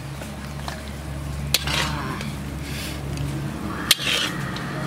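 Hot curry being scooped and slopped onto an aluminium serving tray: a serving utensil strikes metal sharply twice, about a second and a half in and again near four seconds, each clink followed by a brief wet scrape and splatter. A steady low hum runs underneath.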